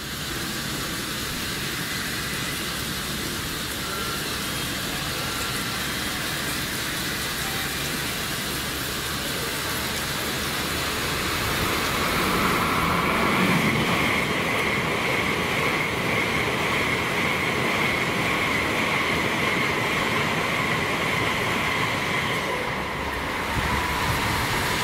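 Shinkansen N700A bullet train passing through, heard over the steady hiss of the trackside snow-melting sprinklers spraying water. The train noise grows about twelve seconds in, carrying a high whine that holds until near the end.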